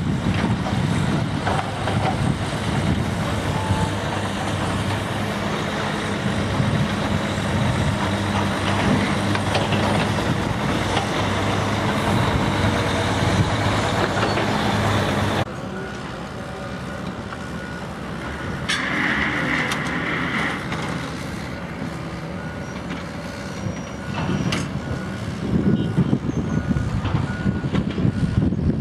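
A heavy diesel engine running steadily close by, with a low hum, until it cuts off suddenly halfway through. After that, quieter construction-site machinery, a brief hiss, and a vehicle's reversing alarm beeping at an even pace.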